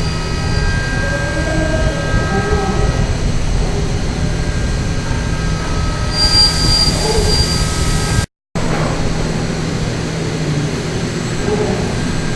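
DMG DMU65 monoBLOCK five-axis machining centre milling an impeller: a steady spindle-and-cutting whine with several high tones over a low rumble. A brief hiss comes about six seconds in, and the sound cuts out for a moment just after eight seconds.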